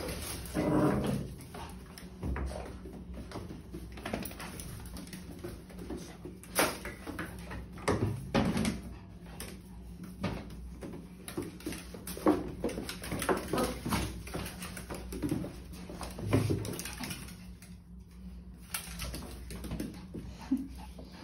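A Pomeranian and two Dalmatian puppies playing together on a tiled floor, with scuffling, scattered clicks and knocks, and a few brief dog vocalisations.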